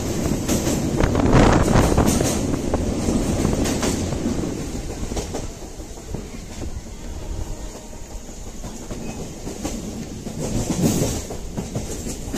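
MEMU electric commuter train running at speed, heard from inside the coach: a steady rumble with irregular clicks and clatter of the wheels over the rail joints. It swells louder about a second in and again near the end.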